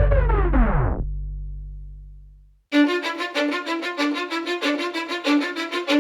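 Hip-hop backing track without vocals: the music slides down in pitch and fades out over the first second or so, with the bass dying away to a brief silence. Then, near three seconds in, a fast, even, repeating melody starts up.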